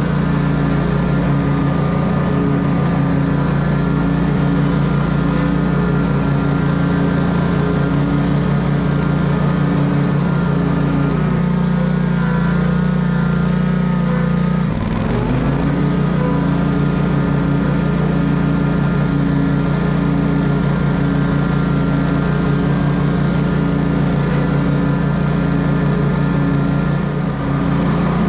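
Commercial lawn mower's engine running steadily at working speed with the blades cutting grass. Its note sags for a moment about halfway through, then picks back up.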